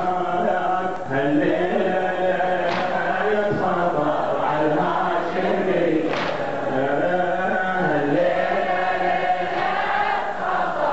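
A large crowd of men chanting a Shia mourning latmiya together, voices rising and falling in unison. Two brief sharp strikes come through about three and six seconds in.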